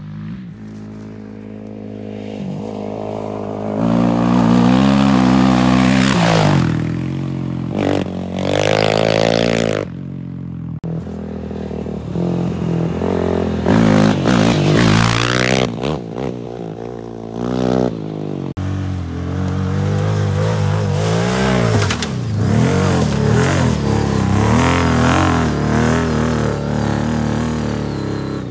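Four-wheeler engines revving hard and accelerating in several spliced passes, the pitch climbing and dropping with throttle and gear changes; the sound breaks off sharply twice between passes. One is the Kawasaki KFX 450R's single-cylinder four-stroke engine, freshly rebuilt with a 13.5:1 high-compression piston and being broken in.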